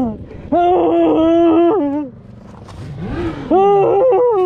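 A man groaning and crying out in pain after a motorcycle crash: long, loud drawn-out groans, each rising at the start and falling away at the end, one fading just after the start, then one lasting about a second and a half, and another starting about three and a half seconds in.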